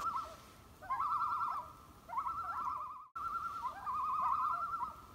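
A bird calling over and over in wavering, quavering phrases of about a second each. Each phrase opens with a short rising note.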